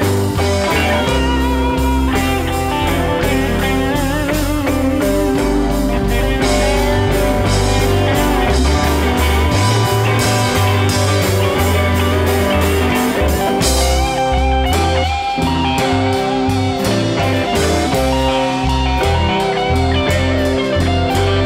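Live blues band playing an instrumental passage: a lead electric guitar played with wavering vibrato over bass, drums and keyboard. The cymbals thin out about two-thirds of the way through.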